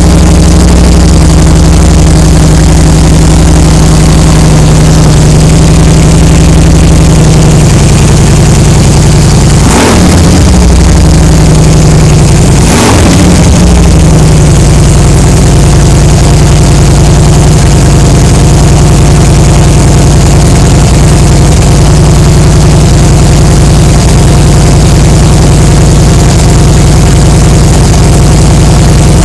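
Harley-Davidson Softtail V-twin running through a D&D Fat Cat 2-into-1 exhaust, idling loudly and steadily. The throttle is blipped twice, briefly, about ten and thirteen seconds in.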